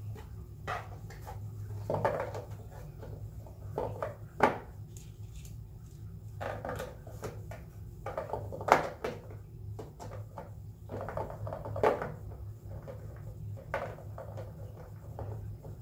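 Irregular knocks and clatter of things being handled, over a steady low hum.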